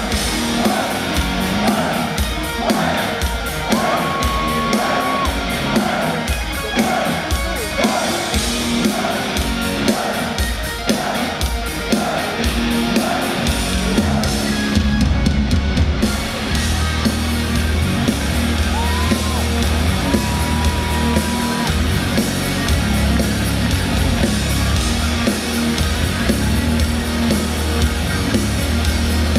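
Heavy metal band playing live: a repeating distorted guitar riff, then bass and drums come in heavily about halfway through.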